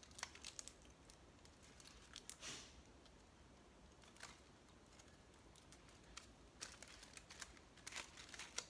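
Aluminium foil faintly crinkling as hands scrunch and press it, in scattered crackles with quiet stretches between, busier near the end.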